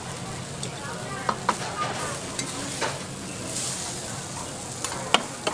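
Fried noodles sizzling on a hot iron teppanyaki griddle, a steady hiss, broken by a few sharp clinks of metal spatulas against the griddle and bowl; the loudest clink comes near the end.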